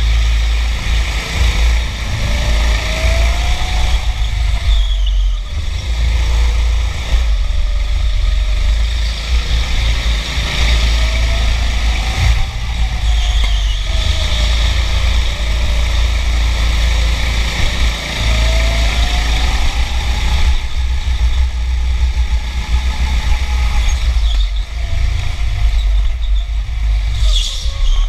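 Go-kart motor running hard on a lap, its pitch climbing as it accelerates and dropping back several times, over a heavy low rumble.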